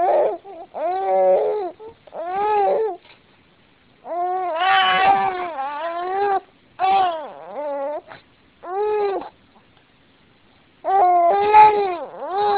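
Young baby crying in a string of short wails, with a brief pause about nine seconds in before louder crying resumes near the end.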